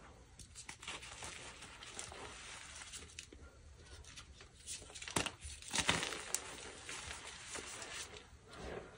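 Dyed gym chalk being crushed and crumbled: dry, crackly crunching in short bursts. The loudest is a cluster of sharp cracks about five to six seconds in.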